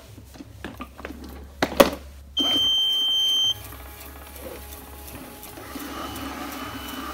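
Clever&Clean robot vacuum giving one steady high beep about a second long, two and a half seconds in: its battery is not charged and it is going to look for its charging base. After the beep it runs on with a quiet, steady whir. A few sharp clicks come before the beep.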